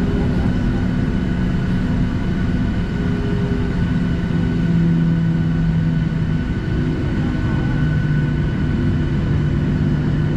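Boeing 737-700's CFM56-7B jet engines running at taxi power, heard from inside the cabin as a steady drone. A low hum in it shifts slightly in pitch a few times, over a steadier higher whine.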